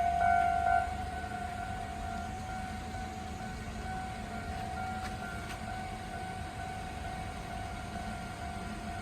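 Japanese railway level-crossing warning signal sounding its steady electronic alarm tone, loudest for the first second and then softer, over a low rumble.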